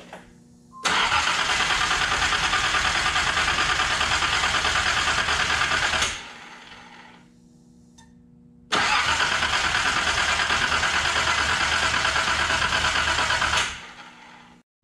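Nissan 300ZX Z31 Turbo's VG30ET V6 turned over on the starter in two steady bursts of about five seconds each, with a pause between. This is priming the oil, building oil pressure through the freshly filled system and the newly fitted oil cooler and lines before the first start.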